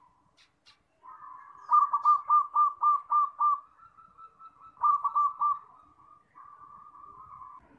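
Zebra dove (perkutut) cooing: a run of about seven quick rolling notes, a held note, then three more quick notes, ending in a softer rolling trill.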